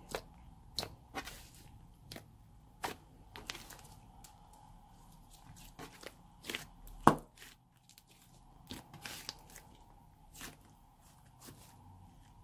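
Thick, glossy slime mixed with clay being kneaded and squeezed by hand, giving irregular sharp clicks and pops, the loudest about seven seconds in.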